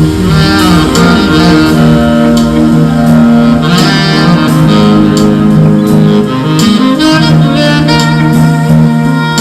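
Background pop music playing an instrumental break, with a saxophone carrying the melody in held notes over a steady accompaniment.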